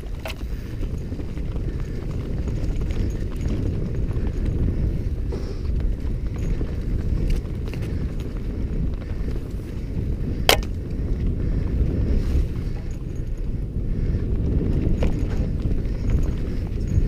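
Mountain bike ridden fast on a dirt forest trail: a steady low rumble of wind on the microphone and tyres on the ground, with a few sharp clicks and knocks of the bike rattling over bumps, the loudest about ten seconds in.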